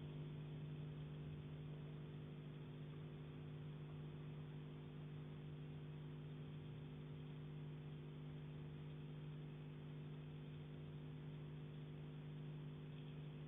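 Steady low hum with several held tones, faint under a light hiss.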